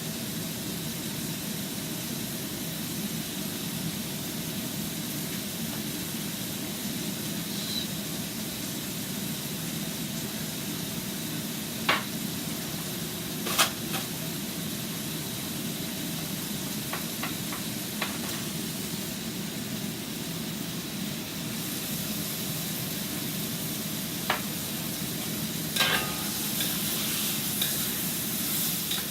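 Scallops stir-frying in black bean garlic sauce in a wok on high heat: a steady sizzle, with several sharp clicks as the utensil strikes the wok.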